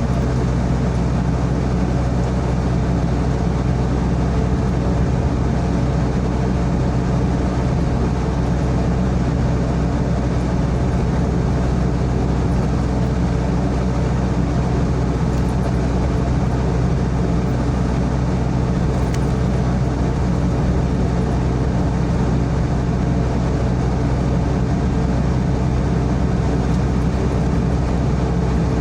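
Sany SY55C mini excavator's diesel engine running at a steady speed.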